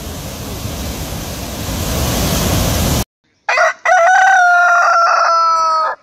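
Steady rush of flooded river water that cuts off suddenly about three seconds in. Half a second later a rooster crows once, a long call falling slightly in pitch.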